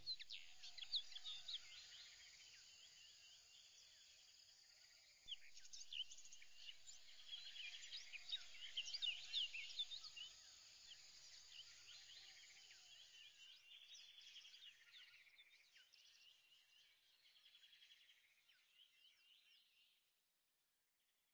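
Faint chorus of many small birds chirping, with quick rising and falling calls, busiest in the middle and fading out near the end.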